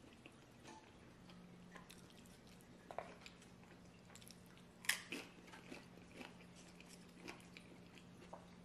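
Faint eating sounds: quiet chewing and wet mouth smacks with scattered soft clicks, the sharpest about five seconds in. A low steady hum starts about a second in.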